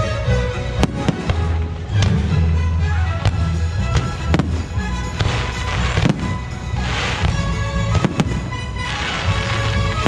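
Fireworks bursting with sharp bangs about once a second, with stretches of crackling around the middle and near the end, over the show's loud musical soundtrack with a heavy bass.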